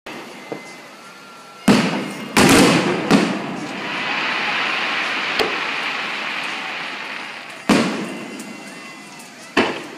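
Aerial fireworks shells bursting overhead: three loud bangs close together about two seconds in, and two more near the end. After the first group there are several seconds of steady hiss.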